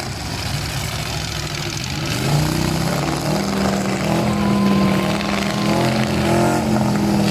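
Demolition derby pickup truck engines running. About two seconds in, one revs up and holds at high revs.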